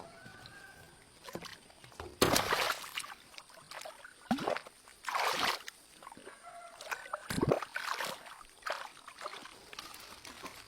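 Water splashing and sloshing in several bursts, the loudest about two seconds in and again around five seconds, with shorter sharp splashes between.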